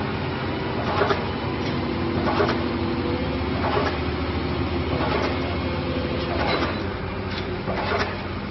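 Pile-driving machinery: an engine drones steadily under sharp knocks that come about once a second at uneven intervals.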